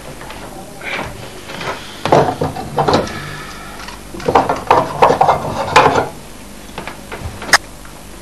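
Bumps, thumps and rustling of a body struggling on a bed, in loud clusters through the middle, with a single sharp crack near the end.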